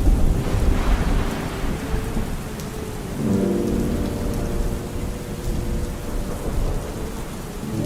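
Steady rain with a low rumble of thunder swelling and fading over the first two seconds. Soft held musical tones sound faintly under the rain from about three seconds in.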